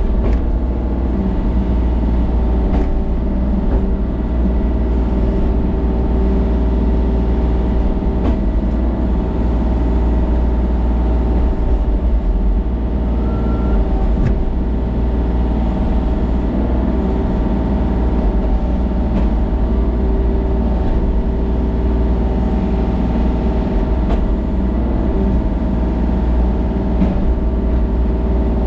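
Engine running steadily at an even speed, loud and unchanging, with no revving.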